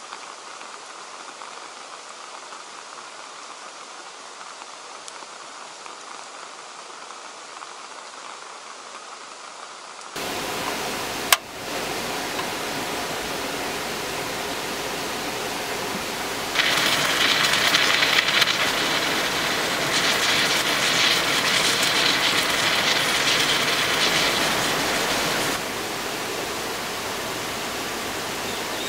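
Steady rain falling on a wet road, then after an abrupt change a single sharp click of a portable gas stove's ignition being turned. A louder hiss follows for about nine seconds, starting and stopping abruptly, over the steady rain.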